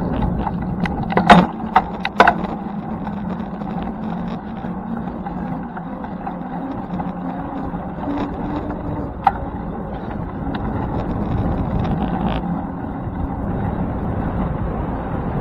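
Steady rumble of a bicycle ride, road and wind noise, with a few sharp knocks: the loudest a little over a second in, another about two seconds in, and one near the middle.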